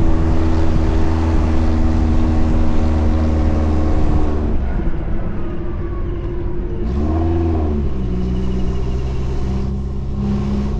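Suzuki Jimny engine running steadily in gear, easing off about four seconds in; around seven seconds the revs briefly rise and fall, and it then settles at a lower steady pitch.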